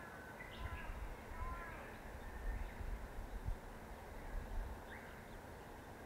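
Faint calls of small birds: a few short whistled notes in the first two seconds and a single chirp near the end, over a low rumble.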